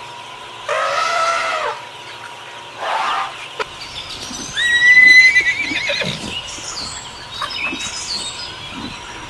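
A horse whinnying: two shorter calls in the first few seconds, then a loud, high call about five seconds in that wavers at its end.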